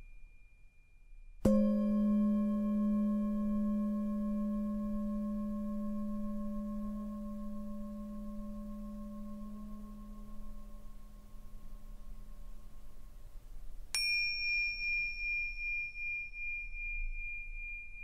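Tibetan meditation music: a deep singing bowl is struck about a second and a half in and rings on, slowly fading. Near the end a small high-pitched bell is struck and rings with a wavering shimmer.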